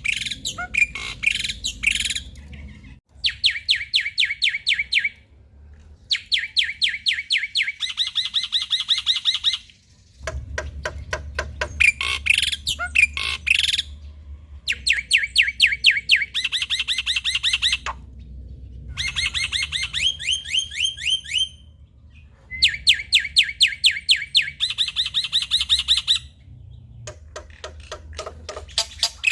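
Male black-winged myna (jalak putih) singing loudly: bouts of fast repeated chattering notes, about ten a second, each bout lasting a second or three, with short pauses between.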